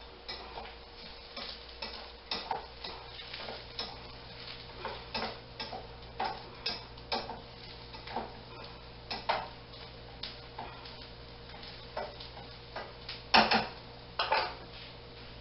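A utensil stirring onions in a pan as they caramelize, heard as irregular scrapes and knocks about once or twice a second, with the loudest knock near the end.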